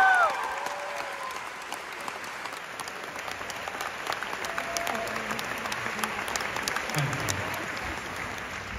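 Audience clapping and cheering. A loud, high whoop from someone in the crowd trails off in the first moment, then the clapping carries on steadily.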